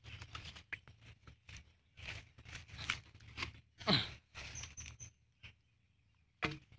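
Footsteps through grass with camera-handling rustles and knocks. About four seconds in comes a loud tone sliding down in pitch, followed by three short high chirps.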